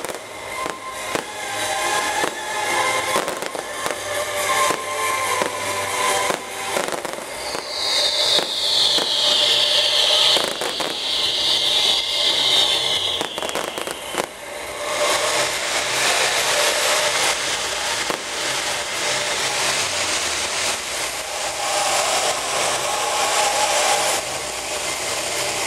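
A fireworks display: dense bangs and crackling from shells bursting overhead, with a loud high hiss lasting about five seconds midway.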